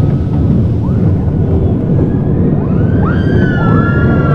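Roller coaster ride: steady wind buffeting the microphone and the rumble of the car on its track. Riders start screaming about two and a half seconds in, several rising, sliding screams overlapping toward the end.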